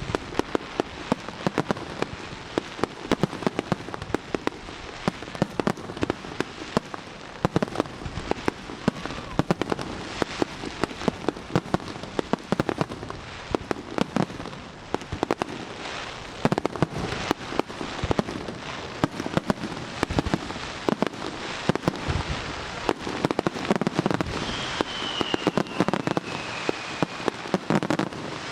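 Aerial fireworks shells bursting in rapid succession, sharp bangs over a constant crackle. Near the end a high whistling tone slides slowly down.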